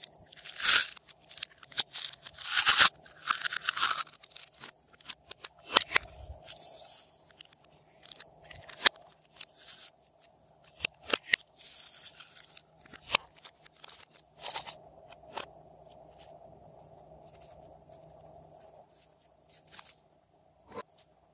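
Small plastic slime containers being handled and opened, giving sharp plastic clicks and short crackling bursts as small beads spill out into the slime. The clicks are loudest and most frequent in the first few seconds, then come singly and further apart over a faint steady hum.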